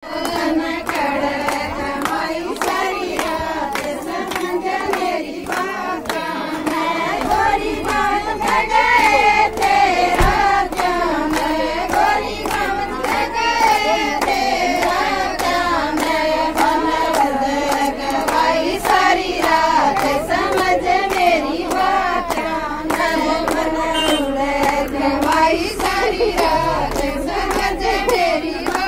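A group of women singing a Haryanvi folk song together, with steady rhythmic hand clapping in time.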